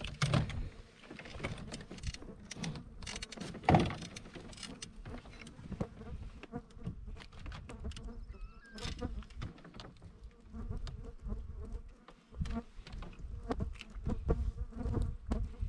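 Flies buzzing close around the microphone, with knocks and rattles of a landing net and a fish being handled in a canoe; the loudest knocks come near the start and about four seconds in. Wind rumbles on the microphone underneath.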